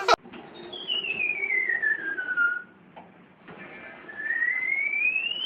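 A clear whistled note sliding slowly down in pitch for about two seconds, then after a pause a second whistled note sliding slowly up.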